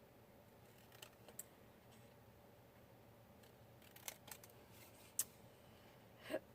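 Scissors snipping paper: a few faint, short snips spread out over several seconds, with near silence between them.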